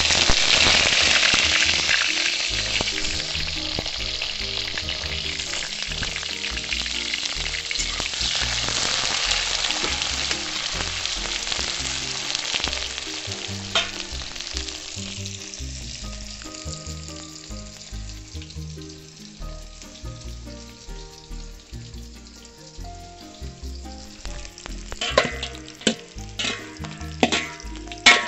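Sliced onions frying in hot oil in an iron kadhai: a loud sizzle right as they go in, fading steadily to a quieter frying over about fifteen seconds. Background music runs underneath, with a few sharp knocks near the end.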